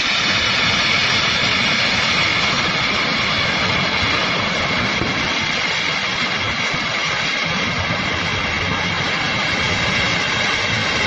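Swat River in flood rushing past, a loud steady noise of fast-moving floodwater.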